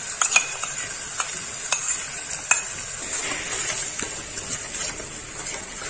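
A steel ladle stirring and scraping spice paste around a steel kadhai as it fries in hot oil, with a steady sizzle and about half a dozen sharp metal-on-metal clinks.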